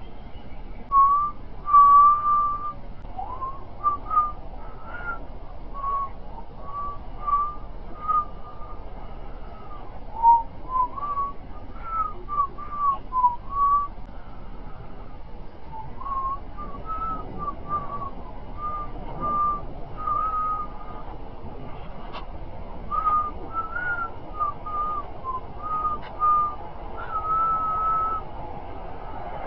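A person whistling a tune in a string of short notes with a few longer held ones, sliding a little between pitches.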